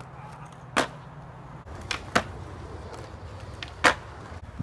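Skateboard wheels rolling on concrete with a low rumble, broken by three sharp clacks of the board striking the concrete, the loudest near the end.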